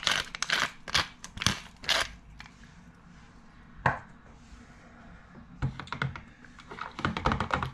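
Handheld pepper mill grinding black peppercorns: a quick run of grinding clicks, about three a second, for the first two seconds. Then a single knock about four seconds in and more clicking and knocking near the end.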